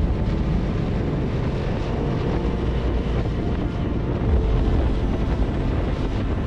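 Motorcycle running at road speed, with steady wind buffeting on the microphone.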